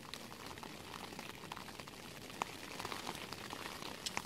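Steady hiss of a gas canister camping stove burning under a small pot, with scattered light ticks over it.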